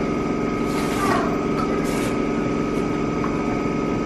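Steady mechanical hum of a running motor or engine, with a thin high whine over it. Two brief rustles of cardboard targets being handled come about one and two seconds in.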